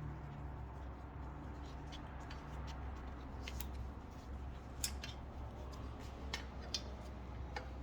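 Scattered light clicks and taps of hand work on the motorcycle wheel as a rim strip is fitted, over a steady low hum.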